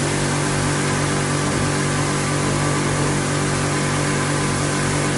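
High-pressure pump of a self-service car wash machine running steadily while its spray gun is open, with a constant hum under the hiss of the water jet.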